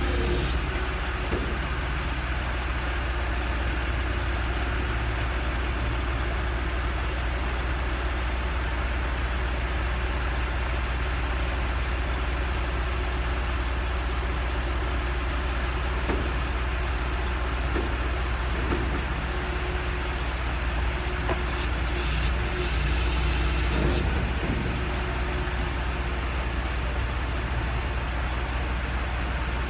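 Heavy engine running steadily and evenly at one speed, a deep continuous rumble.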